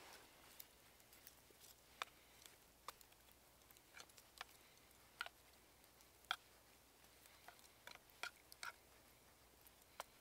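Campfire crackling faintly, with sparse, irregular sharp pops about once or twice a second.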